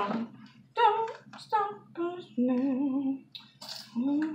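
A woman humming or singing without words: a string of short notes, some held with a wavering vibrato.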